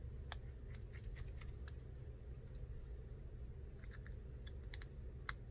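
Scattered light, sharp metallic clicks and ticks of a small precision screwdriver and tiny screws being handled while fitting the screws in a phone's bottom bracket, in small clusters over a low steady hum.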